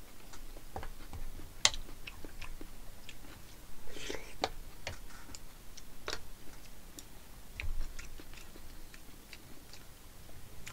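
Metal spoon and chopsticks clicking irregularly against a plate of black-bean-sauce rice, with chewing in between.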